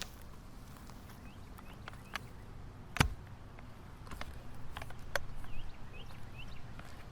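Footsteps through dry brush and sticks, with scattered crackles and one sharp snap about three seconds in. A bird chirps faintly a few times.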